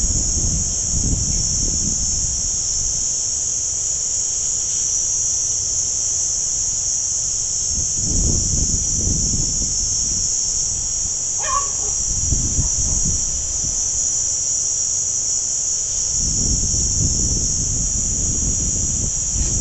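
Steady, high-pitched chorus of insects, with gusts of wind rumbling on the microphone now and then.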